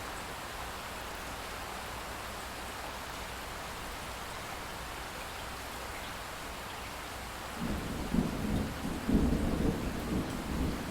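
Steady light rain falling, then about two-thirds of the way through a rumble of thunder breaks in suddenly and rolls on in uneven swells to the end, louder than the rain.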